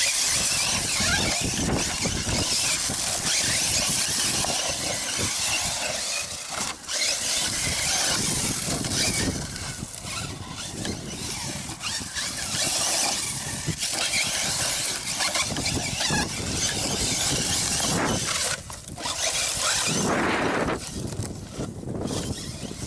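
1/8-scale HobbyKing BSR Berserker electric RC truggy running on 3S over rough, rocky dirt: the brushless motor and drivetrain whine as it speeds up and slows, mixed with tyres on gravel. Its sound swells and eases again and again, briefly dropping off twice.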